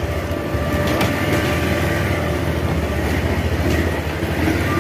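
A motor vehicle's engine running steadily while moving, a continuous low rumble with a faint steady whine over it.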